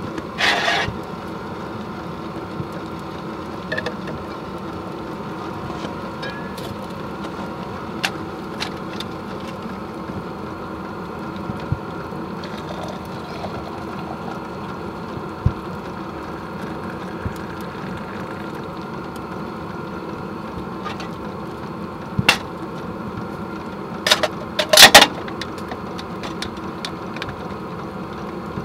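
Diesel heater running with a steady hum. Scattered clicks sound through it, and there are two short, louder bursts of noise: one just after the start and one near the end.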